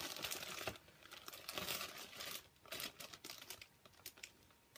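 Faint crinkling rustle of a sealed plastic bag being handled. It comes in irregular spurts and thins out to scattered crackles toward the end.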